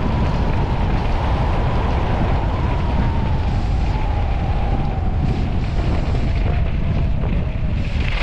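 Heavy wind rushing over the camera's microphone while skiing fast down a groomed piste at around 60 km/h, with a faint whistle that slowly falls in pitch.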